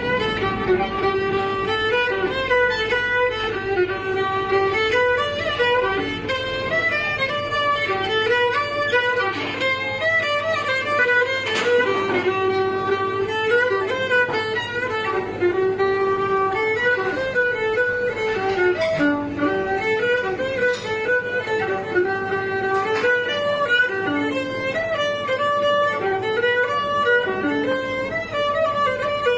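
Cretan lyra bowed solo, playing a continuous, winding melody of short notes that steps up and down within a narrow range.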